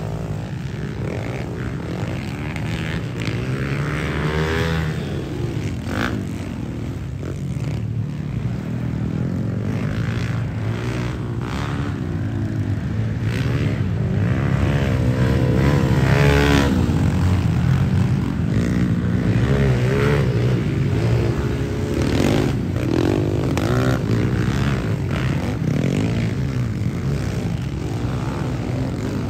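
Several pit bike engines racing, their pitch rising and falling and overlapping as the riders accelerate and back off; loudest about halfway through.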